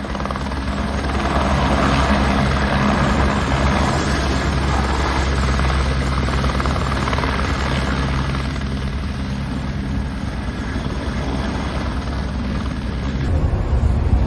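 Steady engine rumble with a hiss over it, running evenly.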